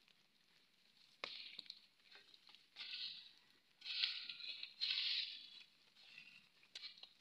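A short-handled digging tool striking and scraping into the packed earth of a termite mound: a sharp knock just over a second in, then three scraping, crumbling strokes around three, four and five seconds in.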